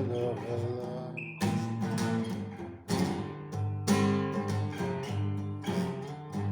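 Guitar music, chords strummed.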